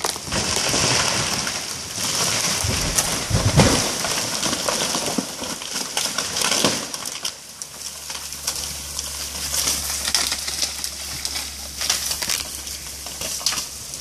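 A big fir tree falling: a rushing swish of branches through the canopy, then a heavy crash as the trunk hits the ground about three and a half seconds in, with a second crash a few seconds later. Scattered cracks and snaps of breaking limbs and debris follow.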